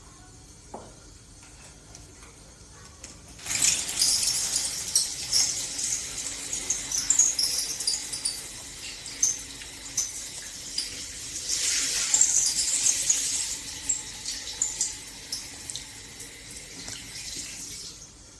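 Water spraying from a shower head, turned on about three and a half seconds in, with uneven splashing that eases toward the end.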